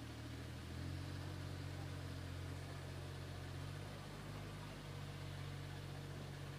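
An engine running steadily at idle, a low even hum that gets a little louder about a second in.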